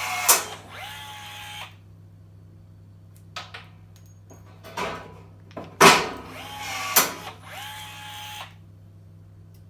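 Milwaukee M12 cordless rivet tool setting rivets twice: each time the motor whirs, a sharp crack as the mandrel snaps, then the motor runs on for about a second at a steady pitch as it resets. A few small clicks come between the two, as the next rivet is loaded.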